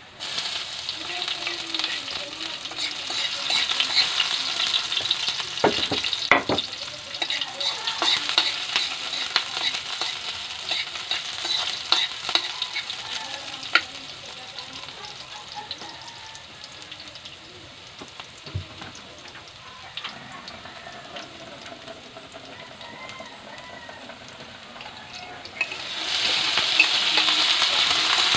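Pork, garlic and onion sizzling in a wok as the onion goes in and is stirred, with a few sharp clicks from the stirring. The sizzle eases off through the middle and flares up louder again near the end.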